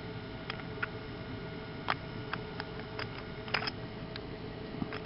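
Small, irregularly spaced clicks and taps from a pocket watch and its metal case being handled, over a steady low hum.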